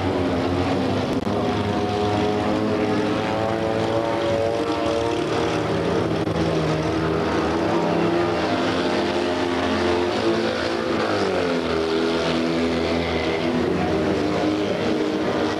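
Engines of two Fiat 126p race cars running hard at high revs, a droning note from more than one engine at once. About eleven seconds in the pitch falls as the cars lift off into a corner, then climbs again as they accelerate out.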